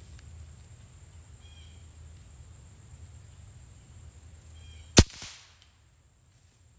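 A single shot from a .25-calibre Edgun Leshiy 2 PCP air rifle about five seconds in: one sharp crack, followed about a quarter second later by a fainter knock.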